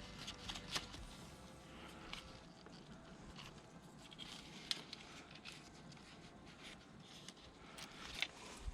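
Faint, scattered clicks and rustles of hands handling a motorcycle speedometer cable as it is fed up through its routing guides.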